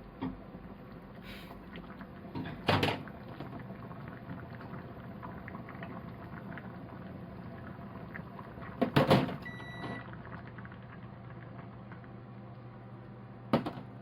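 A few knocks and clatters of kitchen handling over a steady hum, with a short electronic beep just after the middle.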